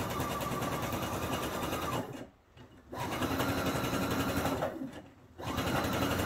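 Pfaff electronic sewing machine stitching a seam through gathered fabric, in three runs with two brief stops, about two seconds in and about five seconds in. Rapid needle strokes sound over a steady motor whine.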